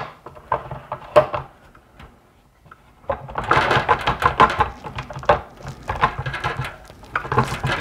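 Hard plastic parts of a stand-mixer meat-grinder attachment clicking and clattering as it is fitted onto the mixer hub and its ring nut is put back on. There are a few separate clicks at first, then a busier run of rattling and knocking from about three seconds in.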